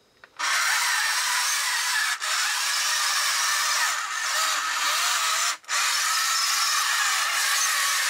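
Electric drive motors and gearboxes of an Academy 1/48 wired-remote-control Merkava model tank running, a steady high-pitched whir. It starts about half a second in and cuts out for a moment twice, about two seconds in and again about five and a half seconds in.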